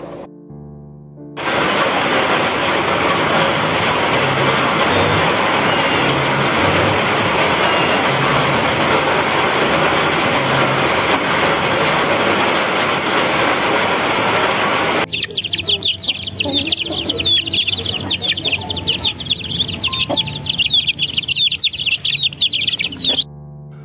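An even rushing noise runs until about fifteen seconds in, then gives way to a brood of chicks and ducklings peeping rapidly and continuously in high, short chirps.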